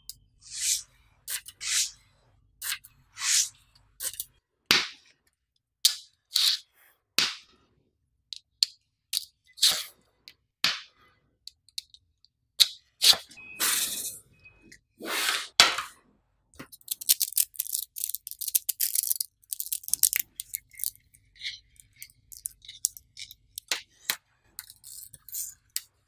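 Small neodymium magnetic balls clicking and snapping together as strips of them are joined and rolled up, with short scraping rattles as they slide on the tabletop. About two-thirds of the way through comes a dense run of rapid clicks.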